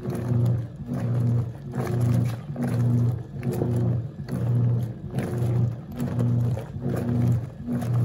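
Wanke Sally 5 kg semi-automatic washing machine agitating a full, foamy load: the motor hums in even strokes a little under a second long, with a short break each time the agitator reverses, and the water sloshes with every stroke.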